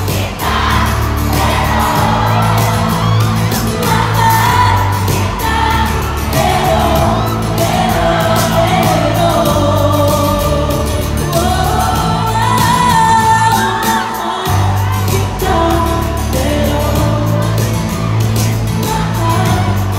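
Female singer performing a pop song live into a handheld microphone over a backing track with a pulsing bass beat. The bass drops out for a moment about two-thirds through, then comes back.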